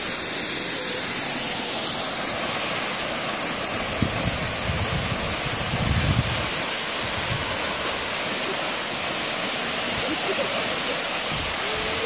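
Waterfall, a thin plume dropping down a rock face into a pool, making a steady rushing splash. The rush grows fuller about two seconds in, with a few low thumps around four to six seconds in.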